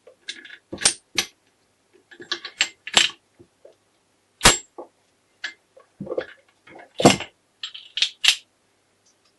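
Steel gearbox parts of a Honda MT5 four-speed transmission clinking and knocking against each other and the crankcase as they are handled and fitted by hand: an irregular run of sharp metallic clinks and taps, the loudest about four and a half and seven seconds in.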